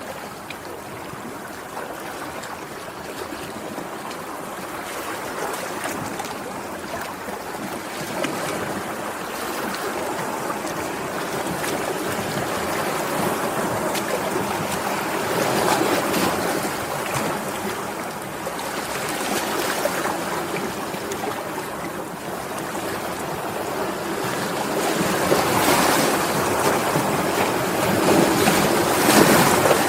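Sea waves washing in a steady rush of surf that swells louder several times, most strongly about halfway through and again near the end.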